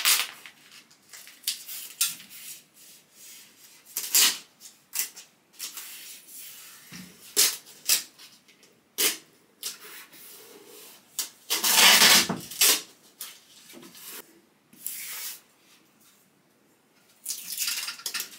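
Masking tape being worked along a ceiling edge by hand: short rubbing and ripping noises on and off, with a longer rip about twelve seconds in and another near the end as tape is pulled off the roll.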